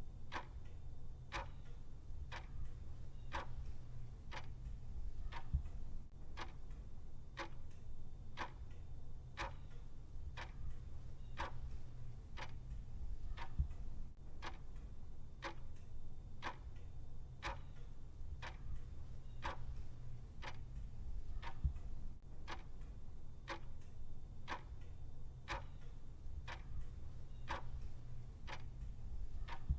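Clock ticking steadily with evenly spaced clicks, over a faint low hum.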